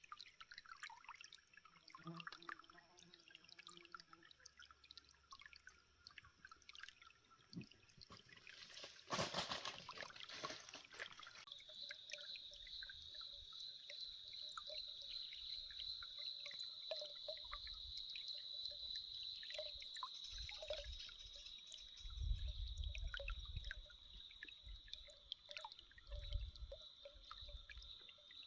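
Water from a small spring trickling and dripping, with many small drip clicks. About twelve seconds in, a steady high-pitched tone joins it, and there are a few low rumbles near the end.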